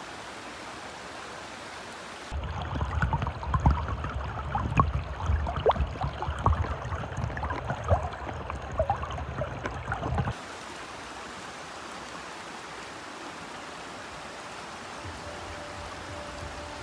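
River water flowing, a steady rushing hiss. About two seconds in it turns louder and closer for roughly eight seconds, with a deep rumble and many small splashes and gurgles, then goes back to the even hiss.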